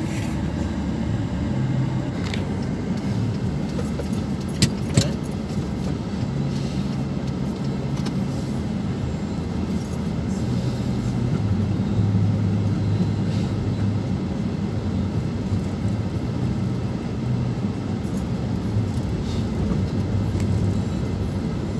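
Car engine and road noise heard from inside the cabin while driving slowly, a steady low hum whose pitch shifts now and then. Two sharp clicks come about five seconds in.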